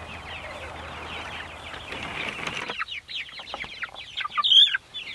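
Young white meat chickens peeping and cheeping continuously in many short, falling calls. A steady hiss lies under the first half and stops about two and a half seconds in, and one louder, higher squawk stands out about four and a half seconds in.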